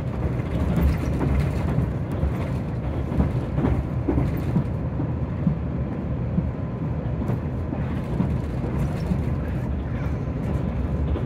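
Electric limited express train running, heard from inside the car: a steady low rumble of the wheels and running gear on the rails, with a few faint clicks.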